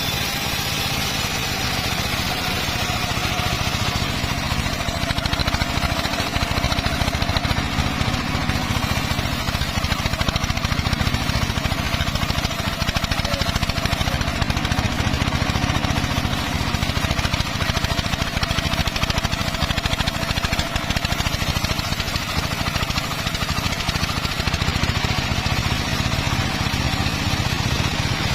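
Circular saw rig running steadily: a loud, even motor drone with a faint, slightly wavering whine held over it.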